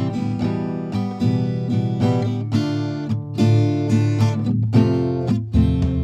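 Background music: acoustic guitar strumming chords in a steady rhythm.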